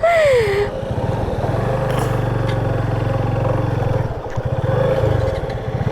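Motorcycle engine running steadily under load on a rough, slippery off-road track. A short falling cry of a voice sounds at the very start.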